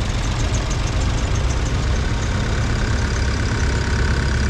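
Vintage farm tractor engines running steadily as the tractors drive slowly past, a continuous low rumble.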